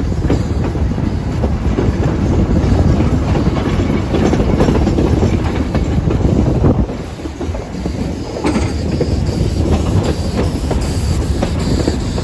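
Heritage passenger train's carriages rolling along the track, a steady rumble with clickety-clack over the rail joints, heard close up from an open carriage window. The rumble dips briefly about seven seconds in.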